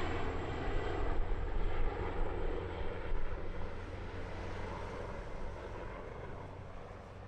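Offshore helicopter in flight: a steady rotor and engine drone with a low rumble, fading away over the second half as it flies off.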